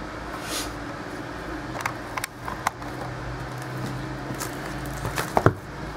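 Trading-card box being handled as the next box is opened: a few scattered light clicks and taps over a steady low hum.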